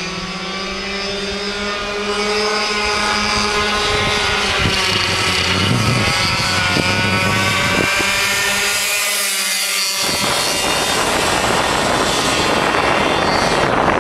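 Go-kart engines racing around the track, their engine note rising and falling as the karts speed up, brake and pass. From about ten seconds in, a rough rush of wind noise on the microphone covers them.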